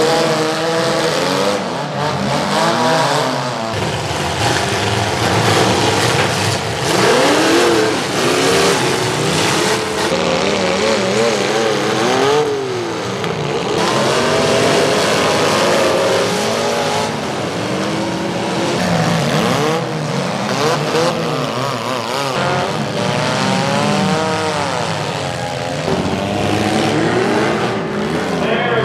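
Several demolition derby cars' engines revving up and down at once. The sound jumps abruptly a few times as one clip cuts to the next.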